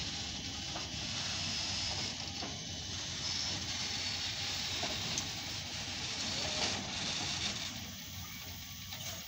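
JNR class C11 steam tank locomotive hissing steam steadily as it is turned on a turntable, over a low mechanical rumble with a few faint clicks.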